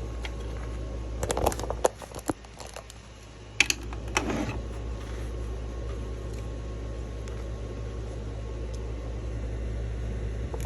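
A few scattered clicks and taps of handling, bunched in the first half, over a steady low hum.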